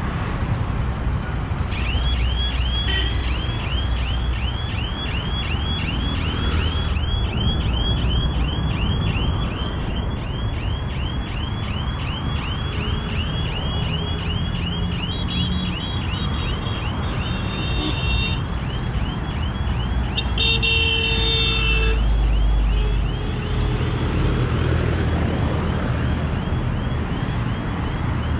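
Road traffic passing, with an electronic alarm chirping on and on, about two or three rising-and-falling chirps a second. About twenty seconds in, a vehicle horn sounds for a second or two.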